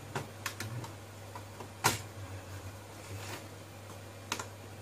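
Scattered clicks and taps of a laptop motherboard being pressed and fitted into the laptop's plastic base, with one louder knock about two seconds in.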